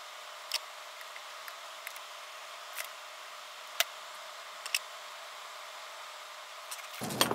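Small hand tools, a soldering iron and pliers, being handled at a workbench during LED tape soldering: four or five small sharp clicks and taps over a steady low hiss. A louder burst of noise comes just before the end.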